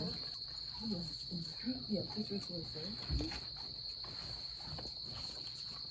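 Crickets chirping in a steady high trill, with faint talk underneath and a soft low thump about three seconds in.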